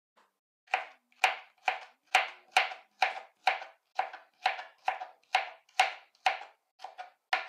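Kitchen knife chopping a cucumber into small pieces on a cutting board: a steady run of sharp knocks, about two a second, as the blade cuts through and strikes the board.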